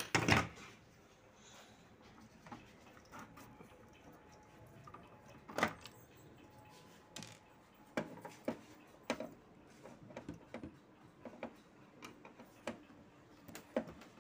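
A flat-blade screwdriver working at the plastic side cover of a Canon imageCLASS MF244DW laser printer, prying at its catches during disassembly. There is one loud knock at the start, then scattered short clicks and knocks of plastic.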